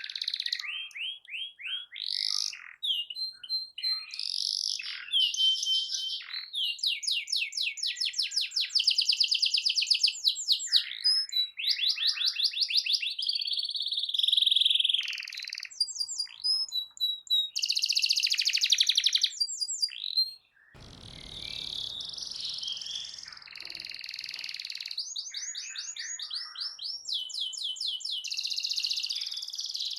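Domestic canary singing continuously: a fast, varied song of rapid trills, rolls and chirps. About two-thirds of the way in the song breaks off for a moment, and a low rumbling noise runs under it for a few seconds afterwards.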